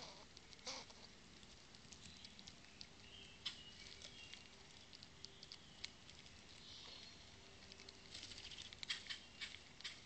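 Faint, scattered clicks and crunches of gray squirrels and an eastern chipmunk eating nuts, with a quick run of ticks near the end.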